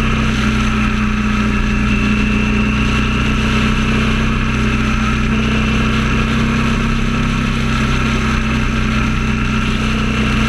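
Motorcycle engine drone at a steady highway cruise, holding one pitch with no revving, under steady wind and road noise.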